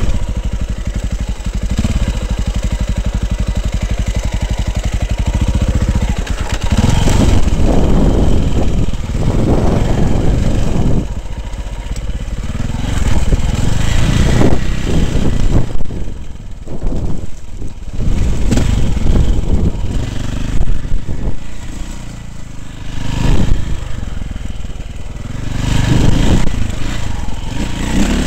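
Dirt bike engine heard from a helmet camera, running at steady revs for the first six seconds or so, then revving up and down repeatedly as the throttle is opened and closed over rough ground.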